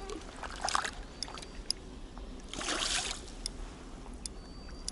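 Water splashing and sloshing in a river current, with two short splashes, one just under a second in and a longer one about three seconds in, and a few light clicks.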